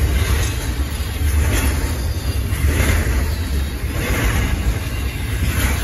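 Double-stack intermodal well cars rolling past: a steady, loud rumble of steel wheels on rail, with a swell of higher rattle roughly every second and a half as the car trucks go by.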